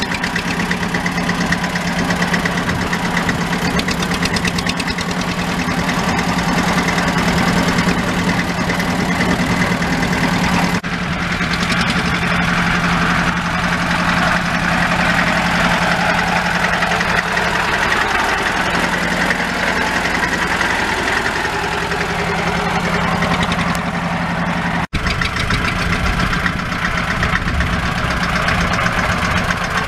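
Deutz D15's single-cylinder air-cooled diesel running steadily with a rapid, even beat as the tractor drives, and near the end pulling a plough. Around 18 seconds in, the engine's pitch sags briefly and recovers.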